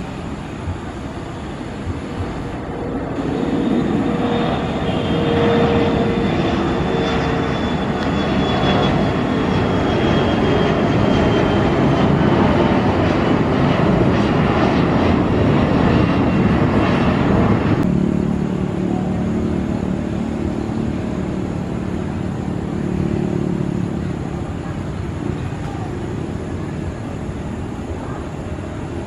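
Bombardier CRJ1000 regional jet's twin rear-mounted turbofans at take-off power as it climbs out: a loud roar that builds about four seconds in, with a high whine slowly falling in pitch. It cuts off abruptly about 18 seconds in, giving way to the lower, steady hum of an ATR 72 turboprop on the runway.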